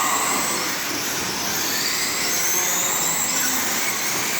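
Several radio-controlled off-road race cars running laps together: a steady mix of high motor whine and tyre noise, with faint rising and falling whines as the cars speed up and slow.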